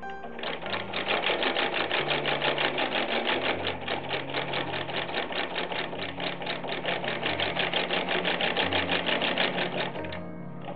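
Antique Wheeler & Wilson 12W102 treadle-driven industrial sewing machine running steadily and stitching through fabric: a rapid, even clatter, one click per stitch. It starts about half a second in and stops just before the end. A fairly noisy running machine, with soft background music underneath.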